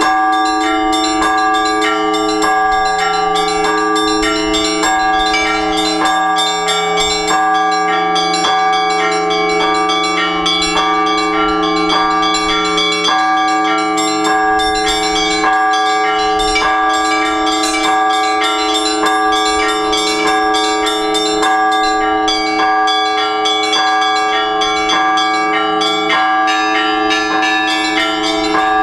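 Orthodox church bells rung together in a continuous peal: quick, frequent strikes of the smaller bells over the sustained ringing of several larger, deeper bells, keeping an even pattern throughout.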